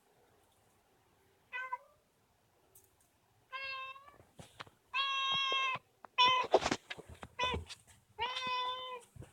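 Domestic cat meowing repeatedly, about five meows of roughly half a second to a second each, the first short and faint. Some sharp knocks or clatter come among the meows a little past the middle and are the loudest sounds.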